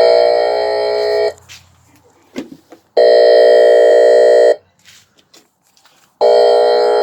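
A speaker driver from a Whelen WPS 4008 outdoor warning siren sounding a harsh, steady tone in three blasts of about a second and a half each, with short gaps between them.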